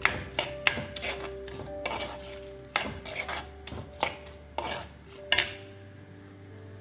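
A spoon stirring in a pan of okra and ground coconut, knocking and scraping against the pan several times a second as salt is mixed in. The knocking stops about five seconds in.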